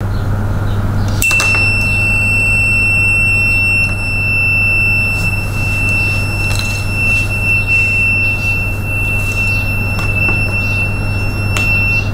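Piezo buzzer of a battery-powered tripwire room alarm sounding one steady high-pitched tone. It starts with a click about a second in, as the insulating tab leaves the contacts and the circuit closes, and it stops at the very end as the tab goes back in.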